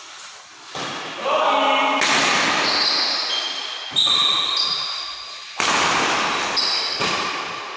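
Badminton rally on an indoor court: sharp racket-on-shuttlecock hits about every two seconds, each ringing on in the hall, with short shoe squeaks on the court floor and a player's call.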